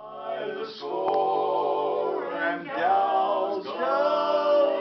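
A group of voices singing together in harmony without accompaniment, holding long notes.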